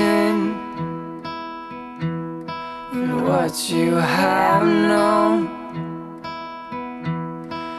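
Background song: acoustic guitar with a singing voice.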